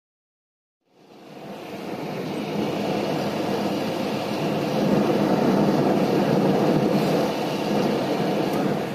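Steady road and engine noise of a moving car, heard from inside the cabin. It fades in about a second in after a silent start.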